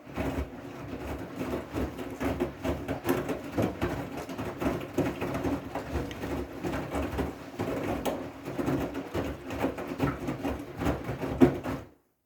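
Siemens i-Dos washing machine running a wool/delicate wash: a steady motor hum with irregular clicks and knocks from the turning drum. It cuts off suddenly near the end.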